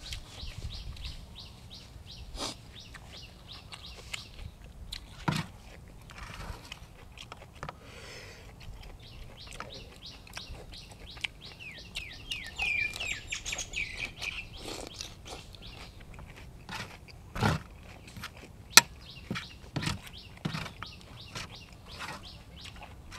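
Birds chirping: a fast, even run of chirps for the first few seconds and a cluster of rising chirps about halfway through. Scattered sharp clicks and crunches of someone eating fall between them, the loudest a sharp click a little after two-thirds of the way in.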